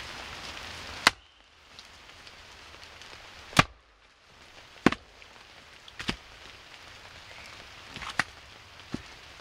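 Wood being chopped: five sharp, unevenly spaced blade strikes, with steady rain pattering between them.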